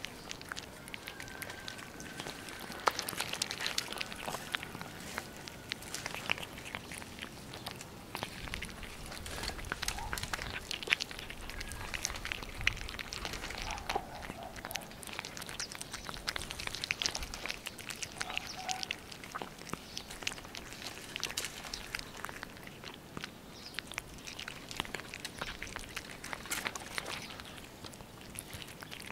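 Two cats eating boiled carp from a plastic plate up close: wet chewing and licking, with many small clicks and smacks throughout.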